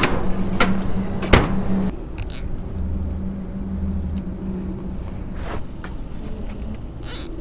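Footsteps and carried crab rings knocking on a metal dock gangway: two sharp knocks in the first couple of seconds, over a low steady hum.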